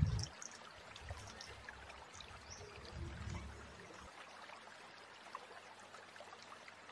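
Thin stream of water from a miniature pipe trickling steadily into a shallow pool. A faint low rumble underneath stops about four seconds in.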